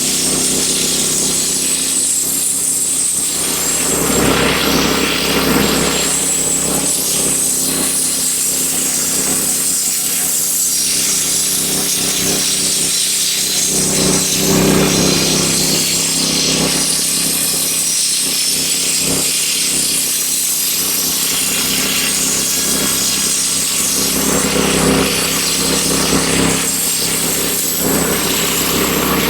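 Wood-Mizer LX25 band sawmill running steadily under load, its blade cutting through a hemlock beam with a steady hiss over the engine's hum. This is a light re-saw pass that takes only a thin trim off the beam to square it.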